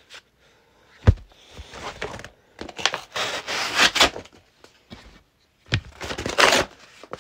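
A sharp knock about a second in, then two stretches of tearing and rustling as a small mailing package is ripped open by hand.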